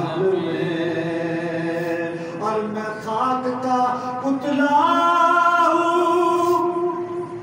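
A man singing a naat, unaccompanied, into a handheld microphone, in long held notes that step up in pitch twice.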